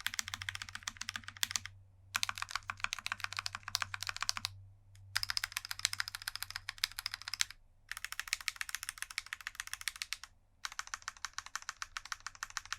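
Rapid typing on a mechanical keyboard: fast runs of key clicks in stretches of about two seconds, broken by short pauses, five stretches in all.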